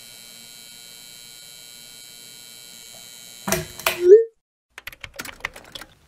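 Computer-keyboard typing clicks: a steady faint electrical hum for about three and a half seconds, then a quick flurry of loud clicks with a short rising blip, and another run of separate typing clicks about five seconds in.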